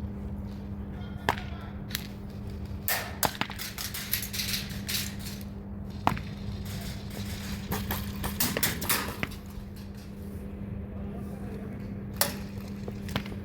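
Airsoft gunfire: scattered sharp cracks and clicks, some single and some in quick clusters, over a steady low hum.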